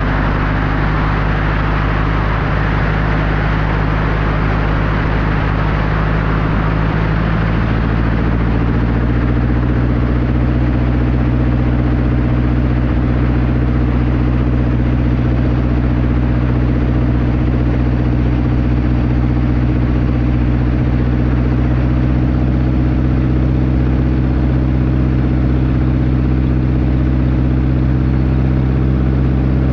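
Seaplane's engine and propeller running steadily. The engine note shifts about eight seconds in, and a rushing noise over it fades away.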